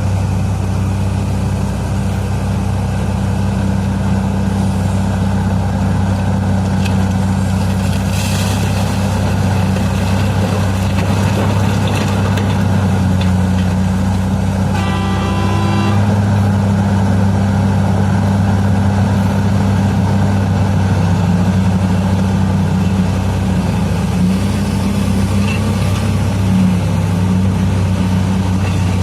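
Heavy diesel engines of a Komatsu PC1250 mining excavator and dump trucks running steadily with a deep hum. A short horn blast sounds about halfway through.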